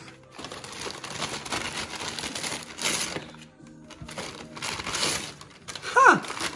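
Gift wrapping paper being torn and crumpled as a present is unwrapped, in two long rustling bursts. Near the end there is a short, loud, falling call.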